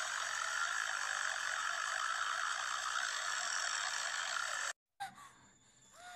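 A ghost's croaking death rattle: a steady, rapid clicking rasp from the throat, cut off suddenly about four and a half seconds in. Only faint short gliding tones follow.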